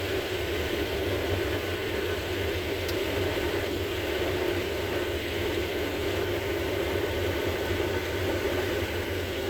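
Combine harvester running steadily while harvesting corn: an even mechanical hum with a low throb underneath.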